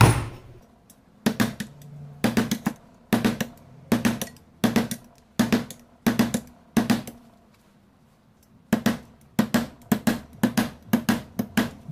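Hammer driving a steel nail through a strip of galvanized sheet-metal drywall profile on a wooden board, punching small holes to make a homemade drywall rasp. Sharp metallic taps come about one every 0.7 s, stop for a second and a half about 7 s in, then speed up to two or three a second.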